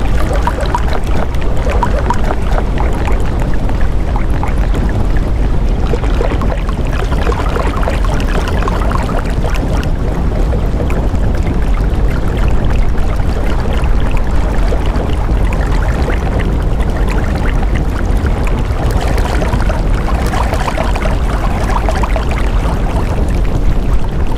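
Steady, loud rushing water-like noise with no clear rhythm, the masking sound of a subliminal track that has spoken affirmations layered beneath it.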